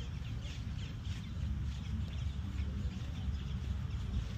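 Outdoor ambience: faint birds chirping in short repeated calls over a steady low rumble.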